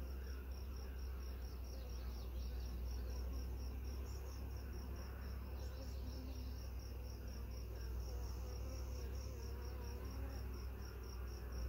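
Honeybees buzzing around an opened hive. Over this, an insect in the grass chirps in an even train of short high-pitched pulses, about four a second, with a low steady rumble underneath.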